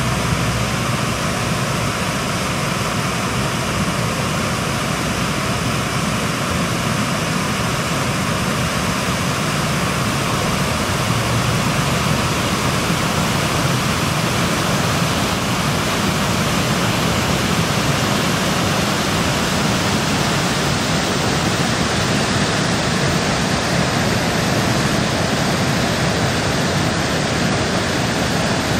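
Steady rushing of muddy flash-flood runoff flowing down the creek channel.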